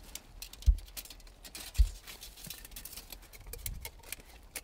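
Faint scraping and clicking as a steel drain-cleaning rod is handled and pushed into a crevice between boulders, with two low thuds, about a second in and again a second later.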